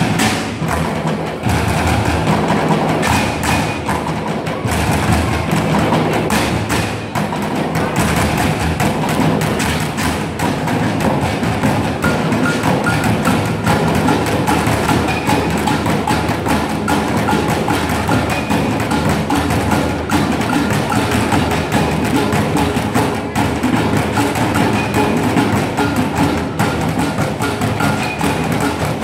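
Percussion ensemble playing a steady, dense rhythm with drumsticks on drums, a snare drum among them: sharp clacking strikes over deeper thuds, without a break.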